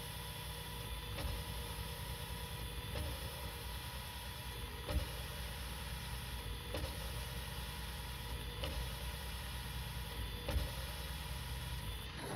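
Valve being power-lapped into its seat on a Detroit DD15 cylinder head: a steady motor hum from the drill spinning the valve with lapping compound, broken by a light tap about every two seconds as the valve is lifted and dropped back onto the seat to pick up fresh compound. The motor stops near the end.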